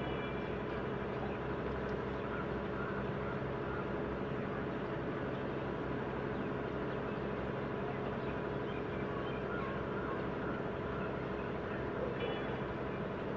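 Small speedboat's motor running steadily at a constant pitch.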